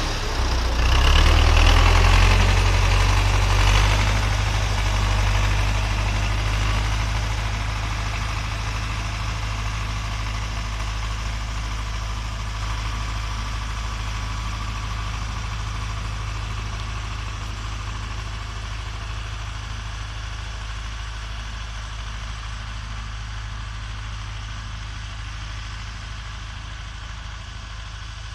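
Diesel tractor engine running under load while pulling a plough, loud as it pulls away and fading steadily as it moves off across the field.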